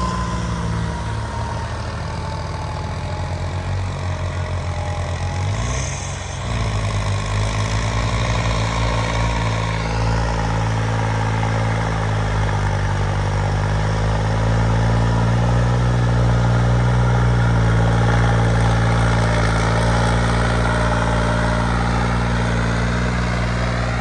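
Power-upgraded tractor diesel engines running steadily. The engine note sags and bends briefly about six seconds in, then picks up again and runs a little louder through the second half.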